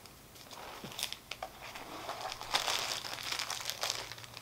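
Crinkling and rustling of packaging being handled, from bundled embroidery floss skeins and bagged stitching fabric, in irregular crackles that grow busier about halfway through.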